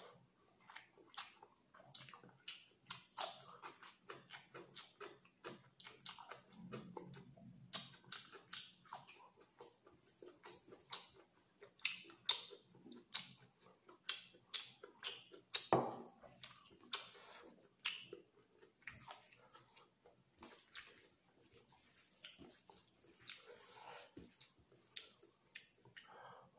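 Close-miked wet chewing and lip smacking while eating chicken liver curry and rice by hand, with squelching of the sauce-soaked rice between the fingers: a steady run of short, irregular smacks and clicks.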